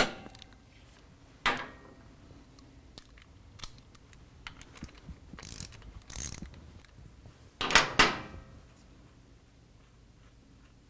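Loosened cam sprocket and pinion gear bolts being taken out of a Harley-Davidson Twin Cam's cam chest with a socket tool and by hand: scattered metal clicks and clinks, a couple of short scrapes, and two sharp clinks close together about eight seconds in.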